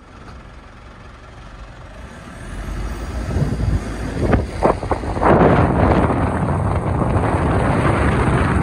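Engine and road rumble of a moving vehicle with wind rushing over the microphone, building up over the first few seconds, with a few short knocks around the middle.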